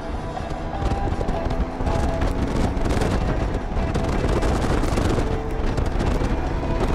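Wind rumbling and buffeting on the microphone of a moving Honda Gold Wing GL1800 motorcycle, with music playing faintly underneath.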